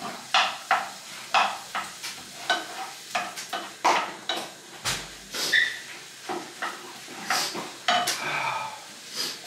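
A cooking utensil stirring and scraping food around a frying pan on the stove, with short scrapes and clinks about twice a second over a faint sizzle of frying.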